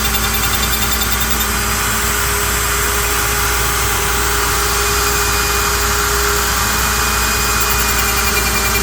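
Router spindle on a CNC lathe cutting a curly maple blank that turns slowly on the rotary axis, with a dust-collection vacuum running alongside: a loud, steady machine noise.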